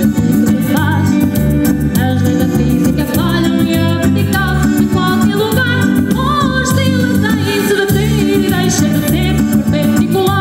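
Live band music: a woman sings the melody over electric keyboard and electric guitar, with a steady beat.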